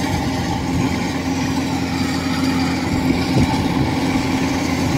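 Kubota DC-105X rice combine harvester running steadily under load as it cuts standing rice. Its diesel engine gives a constant hum with a held tone and no change in speed.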